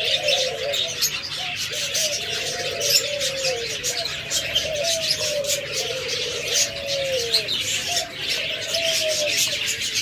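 Several caged doves cooing over and over, their phrases overlapping, over constant high chirping from many small cage birds.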